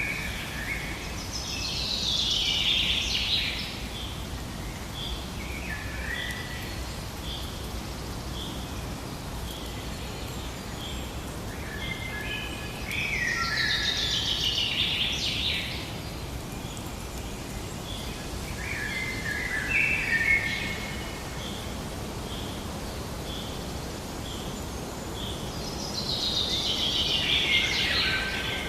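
Birds singing over steady background ambience: a loud song phrase that falls in pitch, repeated three times about twelve seconds apart, with shorter, lower warbled phrases in between. A run of short high notes repeats about once a second throughout.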